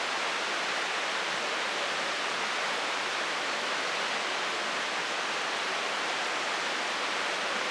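Steady, even rushing noise with no distinct events, typical of outdoor ambience such as running water or rain.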